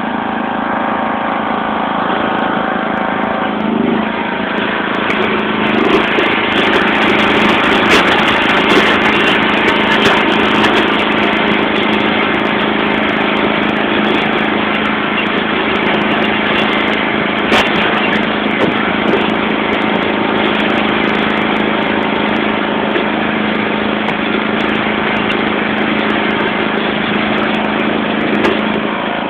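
John Deere LX176 lawn tractor's 14 hp OHV engine running steadily under load while its front snowthrower runs. From about four seconds in the sound turns denser and louder as the thrower churns and throws snow, with scattered sharp ticks.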